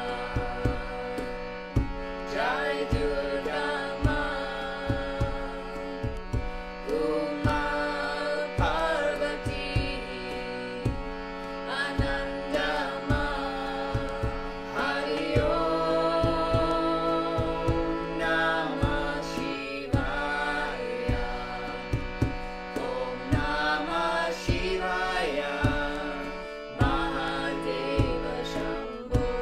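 Kirtan chant sung by a woman and a man, with a harmonium holding steady chords under the voices and a cajón struck in a steady beat of low thumps.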